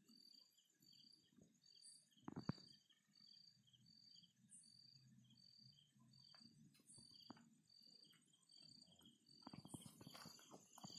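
Faint night insects: a cricket chirping in an even rhythm, a little under twice a second, over a steady high-pitched insect trill, with a few soft knocks.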